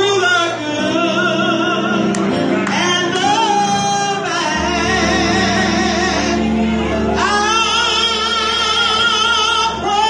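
A woman singing gospel into a microphone over instrumental accompaniment, with long held notes that waver in vibrato, heard through the hall's sound system.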